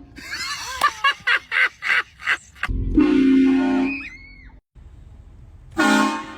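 Car horn blast, one steady tone held about a second and a half, coming about three seconds in, with another short blast near the end.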